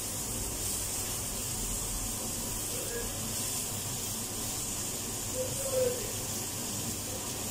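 Steady hissing noise, with faint voices in the background about three and six seconds in.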